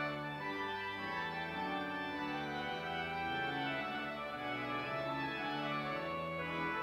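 Organ playing the closing postlude after the dismissal: full held chords that change about once a second.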